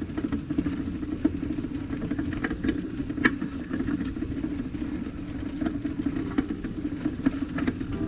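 A vehicle driving along a rutted dirt road: steady engine and road noise with scattered knocks and rattles from the bumps.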